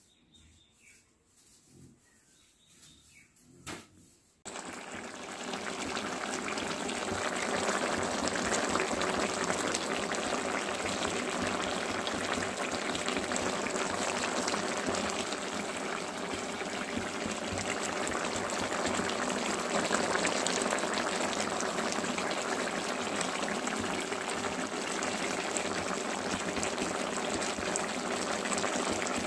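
A pan of chicken curry with potatoes and peas bubbling and sizzling steadily as it cooks. It starts suddenly about four seconds in, after a few faint clinks.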